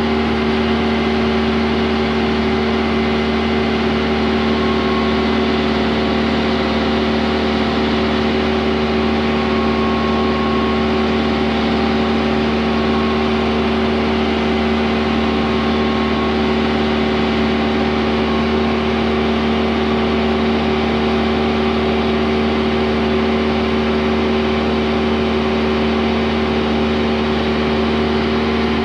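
Excavator's diesel engine running at a steady speed, its steady hum unchanged while the boom lowers a load.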